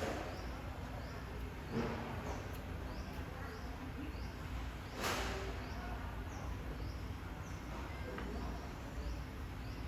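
A small animal's short high chirp repeating about every two-thirds of a second over a low steady hum, with a few soft knocks, the clearest about five seconds in.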